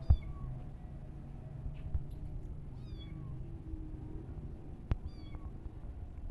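Kitten mewing three times, short high calls falling in pitch, calling for its mother cat. Two sharp knocks, one at the start and one about five seconds in, over a low rumble.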